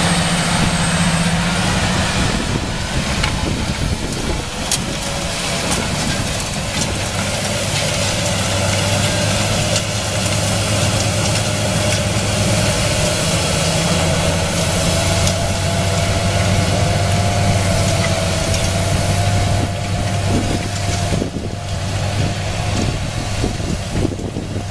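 Claas tractor's diesel engine running steadily under load as it pulls a direct seed drill through grass ley, with a thin whine that rises slowly in pitch through the middle.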